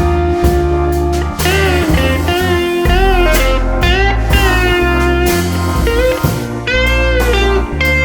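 Background music: a gliding, wavering lead melody over heavy bass notes and a drum beat.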